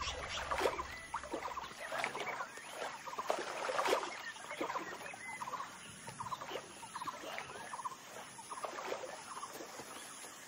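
Sambar deer hooves splashing through shallow water, mostly in the first few seconds, with short, high chirping animal calls repeating all through.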